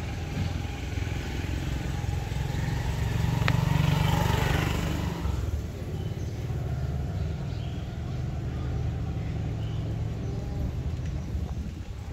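A motor vehicle passing, its engine noise swelling about three seconds in and fading by about five seconds, over a steady low rumble.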